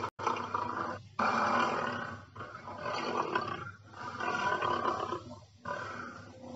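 Dinosaur roar sound effects: a string of long, rough roars, one after another with short pauses between them, the loudest starting about a second in.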